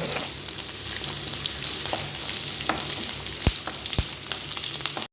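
Small onions, garlic, curry leaves and green chillies sizzling in hot oil in a kadai as they are stirred and sautéed, with two sharp knocks of the stirring spoon against the pan about half a second apart near the end.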